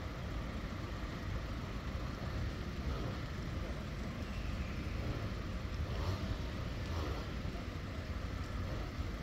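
Steady low rumble of vehicle noise, even throughout with no distinct events.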